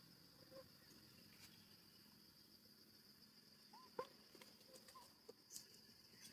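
Near silence with a faint, steady, high-pitched insect drone, broken about four seconds in by a few brief soft chirps and a small click.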